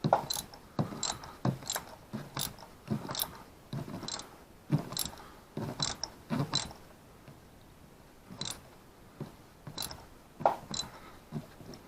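Ratchet wrench clicking in short irregular strokes as a new spark plug is run down snug in the engine's cylinder head, with a lull of a second or two past the middle.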